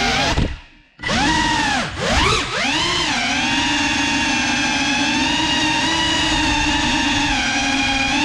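FPV quadcopter's brushless motors whining, the pitch gliding with the throttle. About half a second in they cut out almost to silence, then spin back up with a rising swoop and settle into a steady whine.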